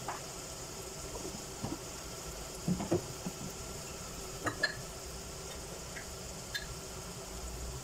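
Onions, tomatoes and spices sizzling and bubbling in oil in an aluminium pressure cooker, a steady hiss broken by a few short pops and knocks, the loudest a little under three seconds in.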